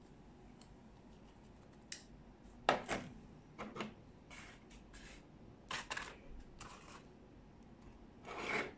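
Hands handling a small magnetic phone mount: a scatter of short rubs, scrapes and light clicks, the sharpest nearly three seconds in and a longer rub near the end.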